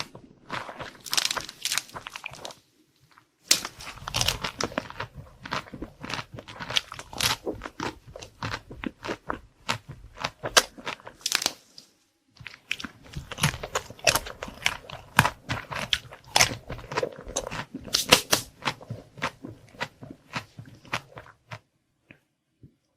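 Close-miked eating of a dessert: crisp, crackly crunches and chewing, with a short pause about three seconds in and the chewing stopping near the end.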